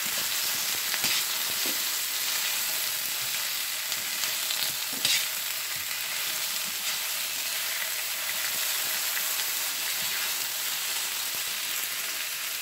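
Sliced onions and bell peppers sizzling steadily in hot oil in a stainless steel skillet, being cooked down until tender. Metal tongs toss them, scraping and clicking against the pan now and then.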